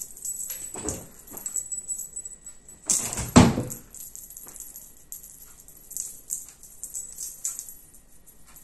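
A cat jumping up onto a wooden chair, landing with a sharp thump about three and a half seconds in, among lighter knocks and faint rattling.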